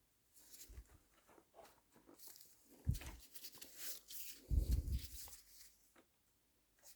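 Hands working loose the rear light and indicator wiring of a motorcycle: rustling, scraping and clicking of plastic parts and wires, with dull knocks about three seconds in and again near four and a half seconds.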